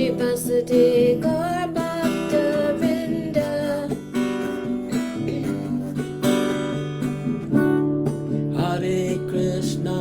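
Kirtan devotional music: an acoustic guitar strummed in a steady rhythm, with a wavering sung melody over it near the start and again near the end.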